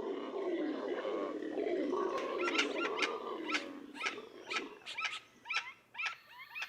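Wild animals calling: a rough, low grunting sound fades out about two seconds in. Then comes a series of sharp, short calls at about two a second.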